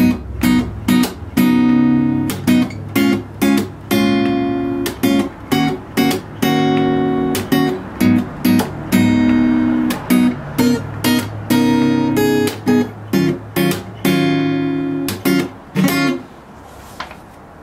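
Acoustic guitar strummed in a steady rhythmic pattern through minor-seventh and ninth chords, with sharp percussive strokes between the chords. The strumming falls away near the end.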